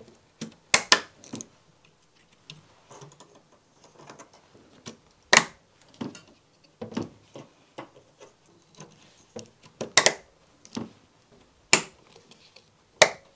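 Sharp plastic clicks and small rattles from hands fitting cables and parts onto a PC motherboard. About six louder clicks come at irregular intervals, with faint ticks and rustling between them.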